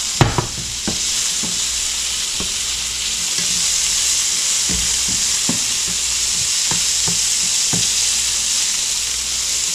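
Cubes of pompano sizzling steadily in a nonstick frying pan while a slotted spatula stirs and turns them, with frequent light knocks and scrapes against the pan and a couple of sharper knocks about half a second in.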